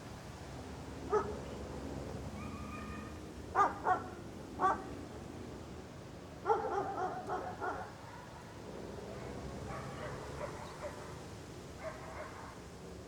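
A dog barking in scattered single barks, with a quick run of several barks midway, over steady outdoor background noise.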